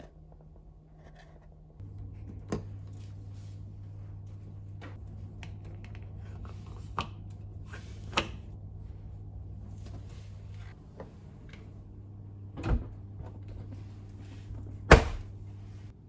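Handling noises of a dishwasher tablet going into a plastic detergent dispenser: a series of separate clicks and knocks, with one loud sharp knock near the end, over a low steady hum.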